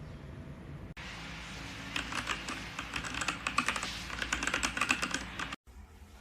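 Typing on a Machenike K500 mechanical keyboard: a quick run of key clicks starts about two seconds in and stops abruptly near the end.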